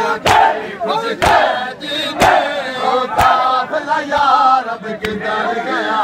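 Crowd of men chanting while beating their bare chests in unison (matam), the hand slaps landing about once a second. The slaps stop about three and a half seconds in and the voices go on.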